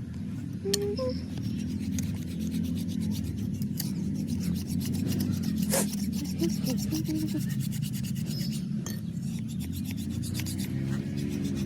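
A blade being sharpened: steady, continuous rubbing and rasping of a sharpening tool against metal, with a few sharp clicks.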